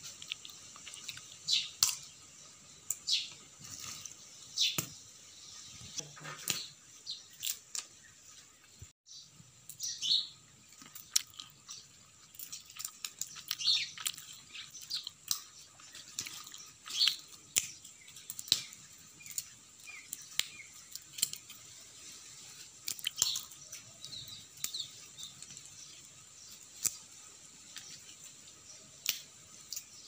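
Sparrows chirping in short, scattered calls while feeding among shelled peanuts, with sharp clicks and taps from the shells being pecked.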